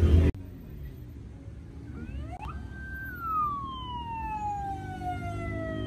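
A siren winds up quickly to a high pitch about two seconds in, holds briefly, then slowly falls away over the next few seconds, over a low traffic rumble.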